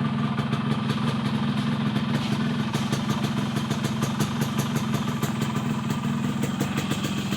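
Yamaha RX-King two-stroke single-cylinder motorcycle engine idling steadily with a deep, rough, rapidly pulsing exhaust note. The idle is tuned for the 'ngorok' (snoring) sound.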